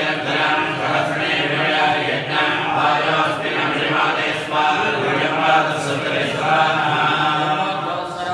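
A group of male priests chanting Sanskrit mantras together in a steady, continuous recitation.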